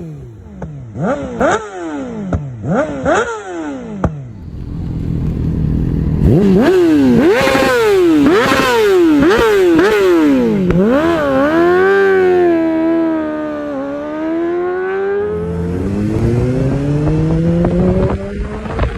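2020 Yamaha YZF-R6's inline-four through an Akrapovič exhaust. It is first revved in quick sharp throttle blips, about two a second, with crackling pops. From about six seconds in it accelerates through several quick upshifts, each a rising sweep cut off by a drop in pitch. After that the pitch wavers, dips and climbs again.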